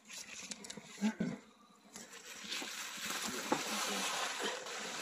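Spruce boughs brushing and snow crunching underfoot as someone pushes through a snowy thicket: a few scattered knocks and scuffs, then a steady rustling from about halfway through.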